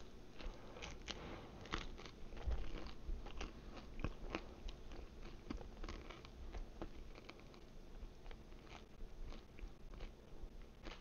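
A person biting into and chewing a slice of pizza: irregular crunches and mouth clicks, with a loud bite near the start.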